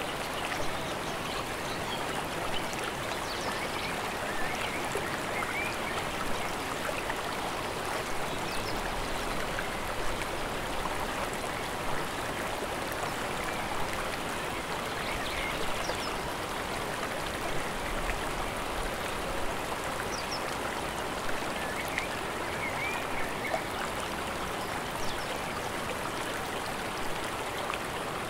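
Mountain river water running steadily, an even rush with no let-up, and a few faint bird chirps above it.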